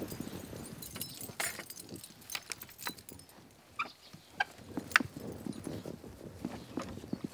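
A wooden picket gate being unfastened and opened: its metal fastening clinks and rattles in a string of sharp clicks and knocks, the loudest about five seconds in.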